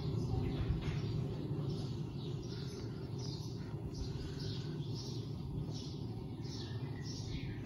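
Small birds chirping, a run of short falling notes one or two a second, over a steady low rumble.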